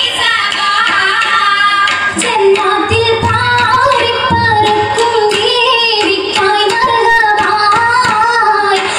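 An Oppana song: a female voice singing a Mappila-style melody over musical accompaniment, with regular hand claps of the dancers keeping the beat.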